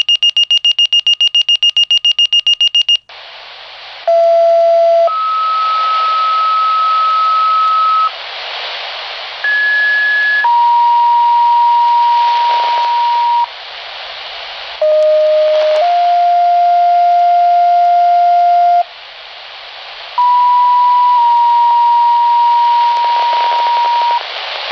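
Motorola fire pager receiving its weekly test page. It opens with about three seconds of rapid high beeping, then the radio channel opens with hiss. Over the hiss come four two-tone sequential paging signals, each a short steady tone followed by a longer tone at a different pitch.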